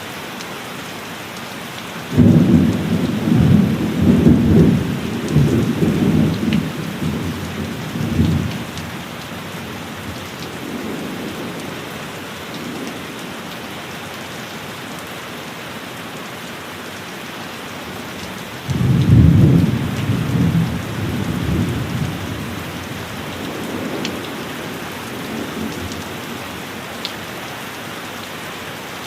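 Steady heavy rain with two rolls of thunder, each breaking in suddenly and rumbling on for several seconds before fading: the first about two seconds in, the second about two-thirds of the way through.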